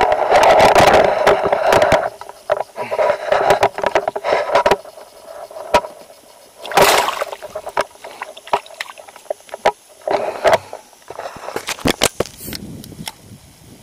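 Water splashing and sloshing close to the microphone as a black bass is held in the water and released, with many short knocks and rustles of handling; the loudest splashes come at the start and about seven seconds in.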